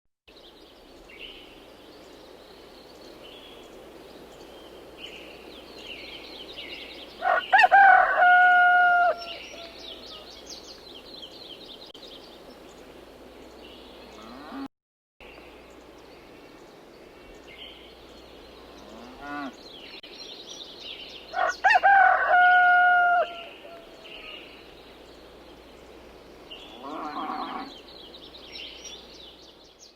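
Chickens calling: a loud, held call with a steady pitch twice, about fourteen seconds apart, and a quieter call near the end, over steady high chirping of small birds.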